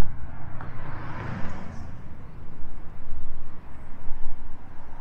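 Street traffic: a car passes by, its tyre and engine noise swelling about a second in and fading, over a steady low rumble of traffic.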